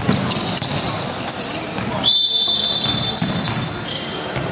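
A referee's whistle blown once, a shrill steady blast of about a second starting about two seconds in. Around it is the hubbub of a basketball game: voices and the ball bouncing on the court.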